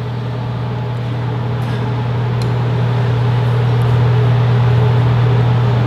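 Steady low machine hum with an even whooshing noise over it, like a fan running, growing slowly louder.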